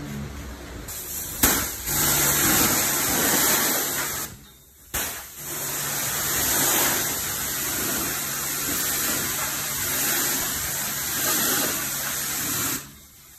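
Self-service car wash high-pressure wand spraying water onto a car, a steady hiss with a low hum under it. The spray starts abruptly about a second and a half in, cuts out for about a second around four seconds in, then runs again until it stops shortly before the end.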